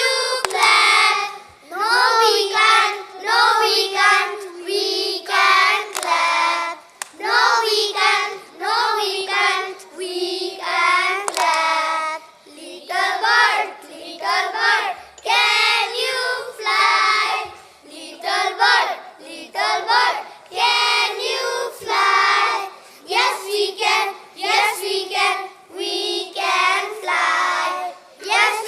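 A group of young children chanting a rhyme together in a sing-song voice, in short phrases with brief breaks between them.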